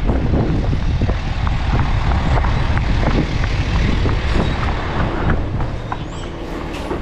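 Garbage truck engine running steadily, with frequent short rattles and knocks from the truck body.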